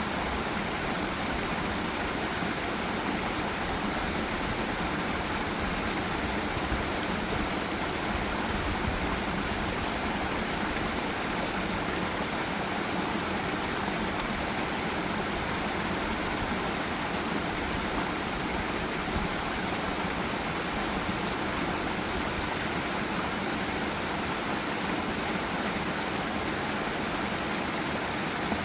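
Steady rush of a forest stream or small waterfall, flowing water making an even hiss that does not change.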